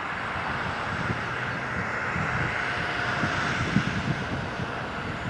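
Shinkansen bullet train crossing a steel truss bridge, a steady rushing roar.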